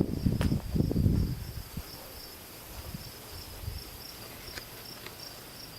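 Crickets chirping in a steady, even rhythm of about three high chirps a second. Low rumbling thumps during the first second or so.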